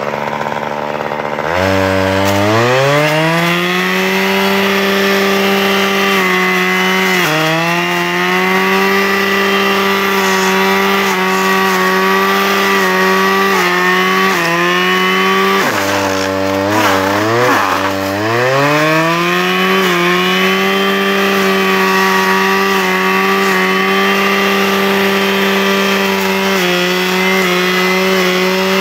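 Husqvarna 535 brushcutter's two-stroke engine revving hard as its Brushdestructor blade cuts brush. It rises from idle about a second and a half in, dips briefly several times as the blade takes load, drops toward idle around the middle, then revs up again.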